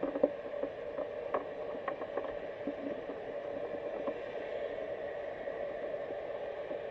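Underwater ambience heard through a GoPro's waterproof housing: a steady muffled hiss and hum, with scattered light clicks during the first four seconds, the sharpest just after the start.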